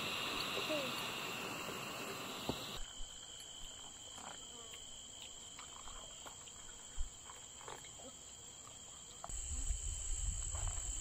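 Crickets chirring steadily, a continuous high insect sound. For the first few seconds a portable butane gas stove hisses under a boiling glass teapot, and a low rumble comes in near the end.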